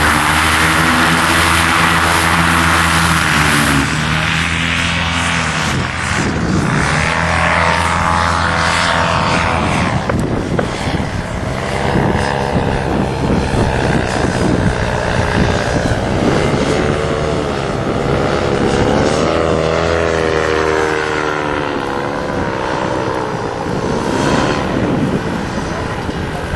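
Paramotor engines and propellers running: a steady low drone, with a second paramotor's pitch rising and falling several times as it flies past and manoeuvres.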